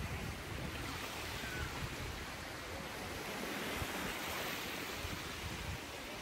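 Small lake waves lapping and washing onto a sandy shore, a steady wash of water.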